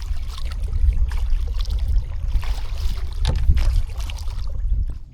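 Kayak paddle strokes: water splashing and trickling off the blades, over a steady low rumble of wind on the microphone. The sound cuts off abruptly near the end.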